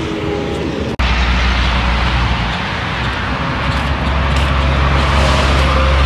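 Highway traffic with cars passing close by and a steady low rumble. About a second in the sound breaks off sharply and comes back louder.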